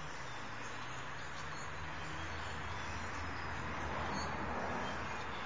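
Steady outdoor background noise: a low, even hum with a soft hiss over it and no distinct events.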